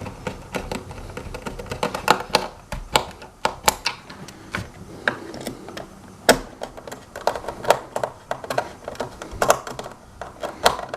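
Screws being tightened into a self-balancing scooter's shell with a hand screwdriver: irregular sharp clicks and taps of tool and screw against plastic and metal.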